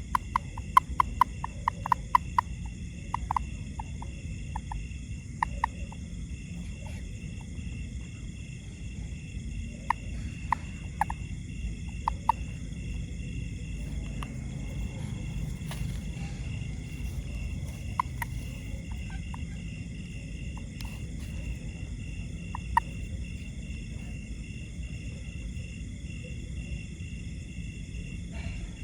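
Outdoor chorus of calling frogs and night insects: a steady high-pitched ringing with a rapidly pulsing note, over a low rumble. Short sharp clicking calls come in quick runs in the first few seconds, then singly now and then.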